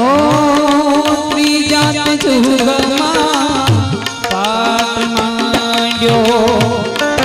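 Indian devotional aarti music. A hand drum keeps a steady beat under long held melodic notes that slide up into pitch at the start and again a little past halfway.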